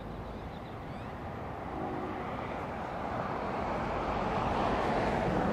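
Noise of a passing vehicle, swelling over a few seconds to its loudest near the end.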